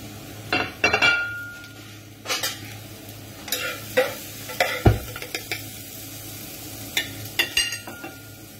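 Metal spoon scraping and clinking against a frying pan and a china plate as food is spooned out, several separate strokes, one clink about a second in ringing briefly. A dull knock about five seconds in.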